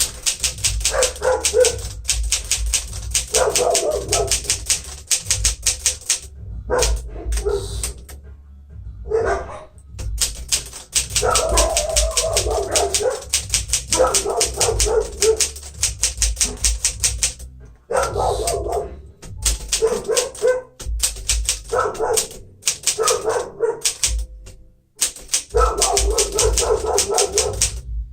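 1957 Smith-Corona Silent-Super manual typewriter being typed on steadily: fast runs of key and typebar strikes broken by short pauses several times.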